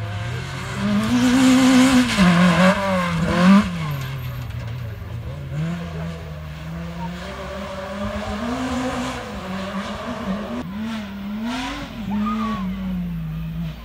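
Off-road rally car engines revving hard on a loose dirt stage, the engine note climbing and dropping again and again through the gear changes, with the hiss of tyres on loose dirt. Loudest in the first few seconds as a car passes close, then a more distant car.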